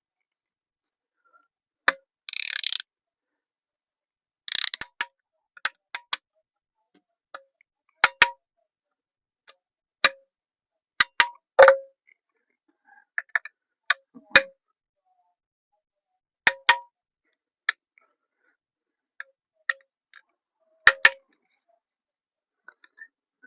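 Sharp metallic clicks and clinks from hand tools working the crankcase bolts on an aluminium motorcycle engine case. Each one rings briefly at the same pitch, and they come irregularly a second or two apart. Two short rasping bursts come near the start.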